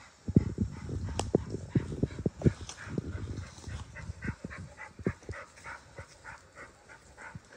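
Footsteps crashing and rustling through brush and leaf litter, loudest in the first few seconds. About halfway through, a run of short high calls starts, repeating about four times a second.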